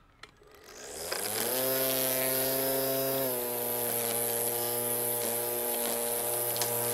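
PowerSmart 40-volt cordless string trimmer starting with a click, its electric motor winding up over about a second to a steady whine. The pitch drops a little about three seconds in, and the line keeps spinning at the lower speed.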